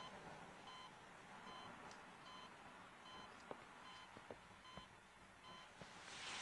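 Faint, regular beeping of a hospital patient monitor, one short electronic beep about every 0.8 seconds, keeping time with the patient's heartbeat. A few soft clicks fall in between.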